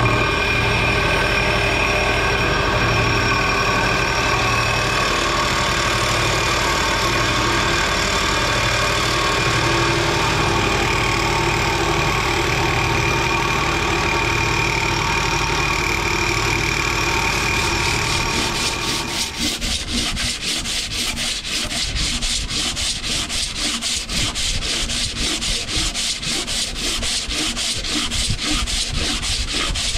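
Electric grinding wheel running steadily, a hum with several held tones, as a Japanese knife blade is ground against it. About 19 seconds in this gives way to quick, even back-and-forth strokes of the blade rubbed by hand on sandpaper laid on a wooden block.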